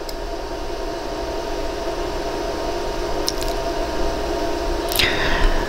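Steady machine hum with two small sharp metal clicks, a little after three seconds and about five seconds in, as pliers close on a silver bracelet's jump ring.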